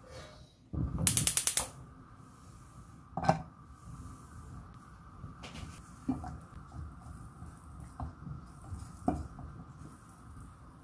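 Metal utensil clinking and knocking against a pan while butter is added to a little oil: a burst of rapid rattling clicks about a second in, then a few single knocks spread out over a faint steady hum.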